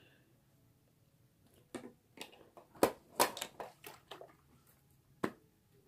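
A run of short clicks and light knocks as makeup products and containers are handled and set down, starting about a second and a half in, loudest around the middle, with a last single knock near the end.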